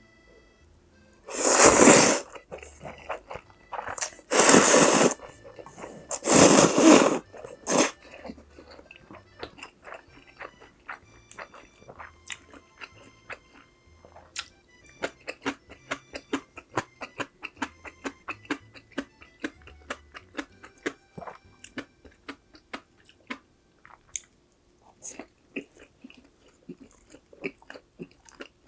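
Close-miked eating of a Chinese-Korean food set: three loud bursts about a second long in the first few seconds, then steady chewing with many small wet clicks and crunches.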